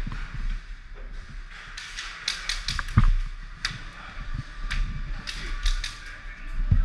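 Airsoft guns firing about a dozen sharp, irregularly spaced single shots over a few seconds, with a few dull thumps in between.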